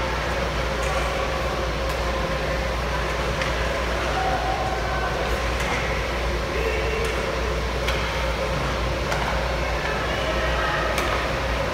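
Ice hockey game in an indoor rink: a steady low hum under scattered distant voices of players and spectators, with occasional sharp clacks of sticks and puck on the ice.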